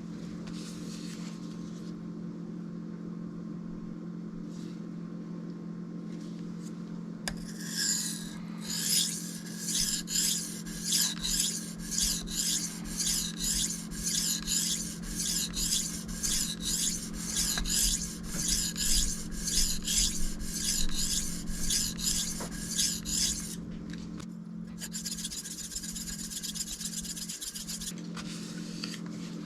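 A knife's steel edge being drawn by hand across a sharpening stone, starting about seven seconds in as a regular scraping rhythm of about one and a half strokes a second, then going on as lighter, steadier scraping near the end. A low steady hum runs underneath.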